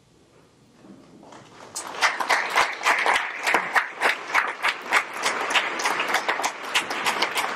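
Audience applauding. It starts about two seconds in after a brief hush and continues as steady clapping.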